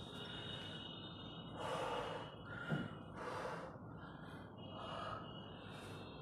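A man breathing hard after a set of 50 dips: deep, noisy breaths about every second and a half, with a short thump about two and a half seconds in.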